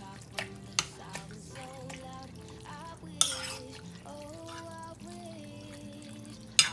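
Spoon stirring a wet chicken, rice, diced tomato and corn mixture in a mixing bowl, with a few sharp clinks of the spoon against the bowl, the loudest about three seconds in and near the end. Soft background music plays underneath.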